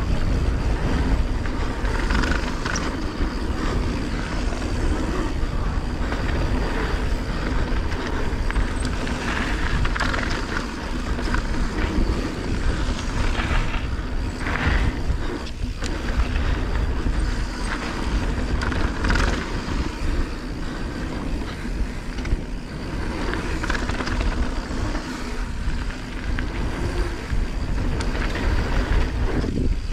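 Mountain bike riding down a dirt trail at speed: tyres rolling over packed dirt and loose gravel, with a steady low rumble of wind on the microphone.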